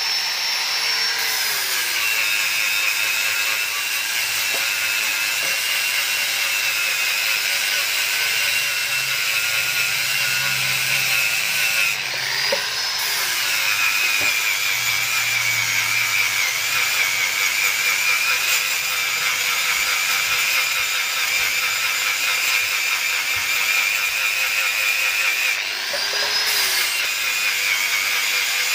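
Handheld angle grinder running steadily, its disc grinding down the weld seams on a steel motorcycle muffler, with a high whine over the grinding hiss. The motor's pitch dips and recovers twice, about twelve seconds in and near the end.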